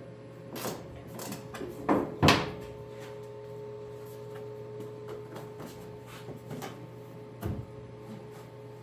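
Classic car hood being shifted on its loosened hinges: several sharp metal clunks and knocks in the first couple of seconds and one more near the end, over a steady low hum.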